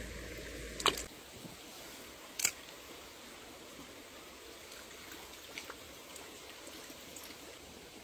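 Shallow stream trickling over rocks, with a sharp click about a second in and another about two and a half seconds in.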